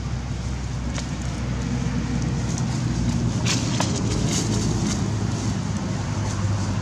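A steady low engine drone, with a short crackling rustle about three and a half seconds in.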